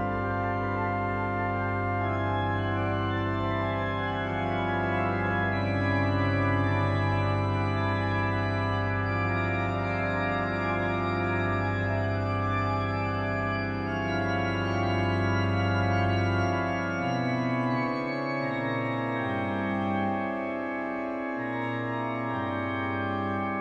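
Rieger pipe organ playing dense, sustained chords. A long low pedal note is held, then about two-thirds of the way through the bass breaks into shorter moving notes under the held upper chords.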